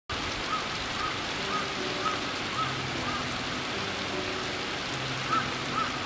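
Steady rain falling and pattering on the ground, with faint soft music underneath.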